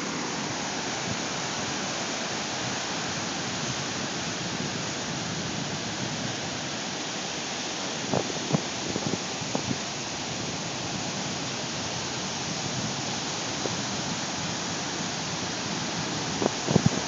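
Pacific Ocean surf washing onto the beach as a steady rushing noise, with a few brief bumps about halfway through and again near the end.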